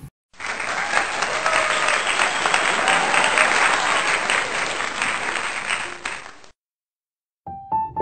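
Crowd applause, loud and steady for about six seconds, then cutting off abruptly. After a second of silence, a piano tune begins near the end.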